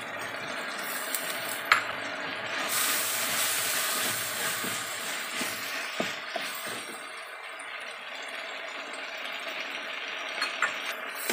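Greens and cabbage frying in a hot stainless steel wok, the sizzle jumping up about three seconds in and easing off later. A wooden spatula stirring gives occasional clinks and knocks against the metal; the sharpest comes about two seconds in.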